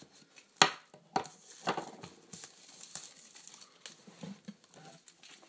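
Clear plastic shrink-wrap on a tablet box being slit with a knife and pulled away, crinkling and crackling in short irregular bursts, with a sharp crack about half a second in.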